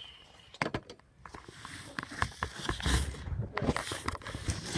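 Handling noise from the phone filming being picked up and moved: a few sharp clicks a little over half a second in, then a dense run of rustling, rubbing and small knocks against the microphone.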